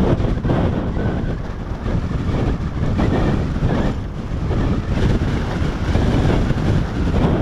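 Wind buffeting the microphone of a camera on a bicycle coasting fast downhill: a loud, steady rushing rumble that swells and dips.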